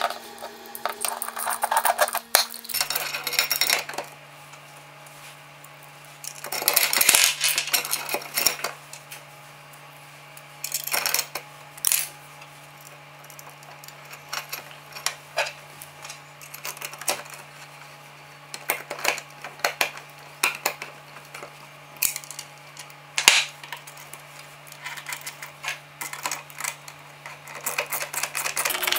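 Irregular metallic clinks and rattles of steel bolts, washers and nuts being handled and fitted to an aluminium router-sled carriage and tightened with a hex key, with a few louder clattering spells. A steady low hum runs underneath.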